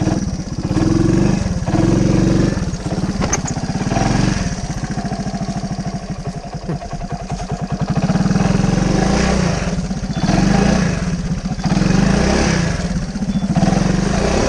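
Honda ATC 125 three-wheeler's small single-cylinder four-stroke engine revving in repeated bursts as the stuck machine is throttled to work it out of a muddy creek bed. It drops back to a lumpy idle in the middle, then revs several more times in the second half.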